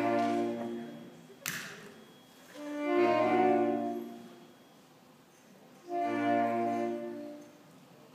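Small wind ensemble of saxophone and trombone playing held chords, each about a second and a half long, with short silent gaps between them. A short sharp noise cuts in about a second and a half in.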